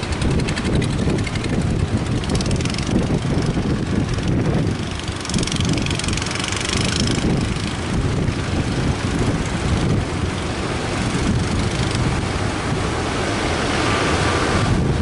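Wind buffeting the microphone over a steady low rumble of boat engines and surf, with the hiss of breaking waves swelling twice.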